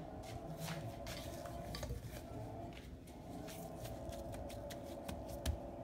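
Household refrigerator running close by: a steady hum of a few level tones, with faint scattered clicks over it. The owner calls it the weird noise her refrigerator makes.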